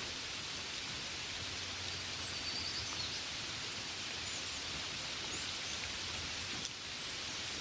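Steady gentle rain, an even hiss, with a few faint high chirps about two and five seconds in.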